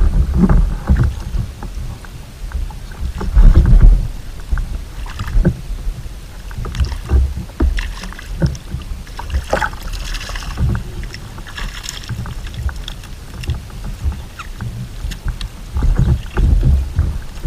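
Irregular knocks and bumps against the kayak hull and gear as the line and landing net are handled. Water splashes near the middle as a hooked fish thrashes at the surface and is scooped into the net.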